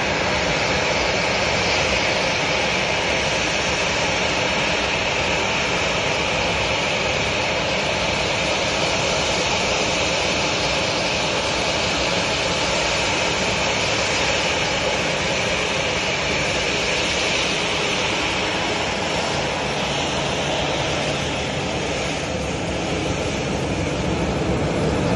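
Jet engines of a Boeing 737-700 BBJ, its twin CFM56-7 turbofans, running at taxi power: a steady jet whine and rush. A lower hum comes in near the end as the aircraft turns side-on.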